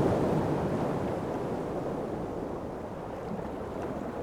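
Ocean surf: a steady rushing wash of breaking waves, slightly louder at first and then easing off.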